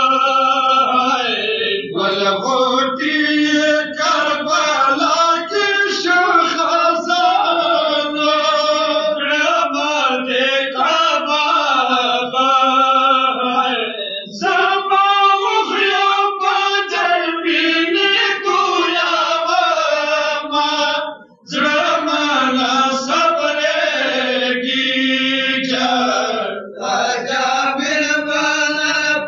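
Men's voices chanting a Pashto noha, a Shia mourning elegy, in a slow sung recitation. Several voices join in together, with a brief break about two-thirds of the way through.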